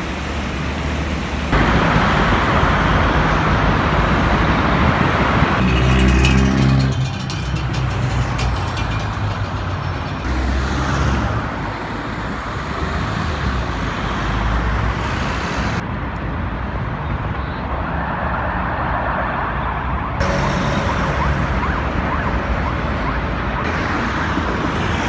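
City street traffic noise: road vehicles passing, a steady rushing haze. The sound changes abruptly several times, as one short outdoor recording gives way to the next.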